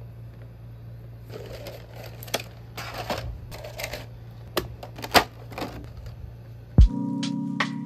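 Hands handling and opening an action figure's cardboard box and plastic packaging: irregular rustling with sharp clicks and taps over a low hum. Near the end a loud thump is followed by background music.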